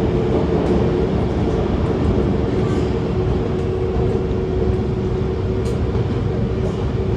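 MTR SP1900 electric multiple-unit train running: a steady low rumble with a steady electric hum over it and a few faint ticks.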